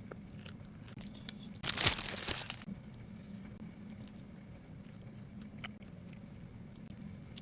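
A crunchy bite into a grilled rice cake with a crisp shell, loud for about a second around two seconds in, followed by a few faint clicks of chewing.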